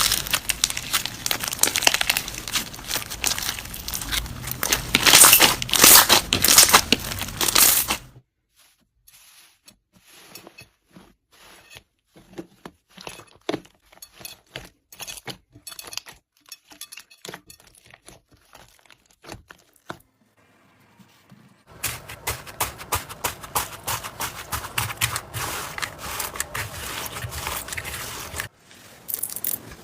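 Slime being squeezed and pulled by hand, with dense crackling and crunching. Near the middle it drops to a much quieter stretch of sparse crackles and small pops, then the dense crackling returns about three-quarters of the way in.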